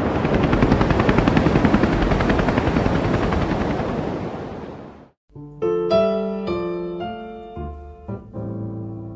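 A rushing noise with a rapid, even flutter fades out over about five seconds. After a brief silence, slow solo piano music begins, with single notes and chords.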